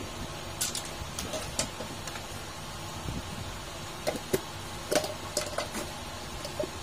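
Scattered light clicks and knocks of small motor parts and a plastic tub lid being handled and set down on a bench, a few with a short ring, over a steady background hum. The loudest knocks come in a cluster in the second half.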